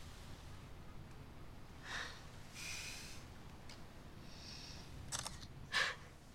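Smartphone camera shutter sound as a selfie is taken: short clicks about five seconds in, the last one the loudest.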